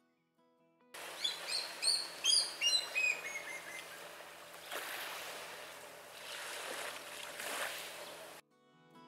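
Birds chirping, a quick run of short falling chirps in the first couple of seconds, over a steady rushing hiss of gentle waves on the shore that swells twice. The sound stops abruptly near the end.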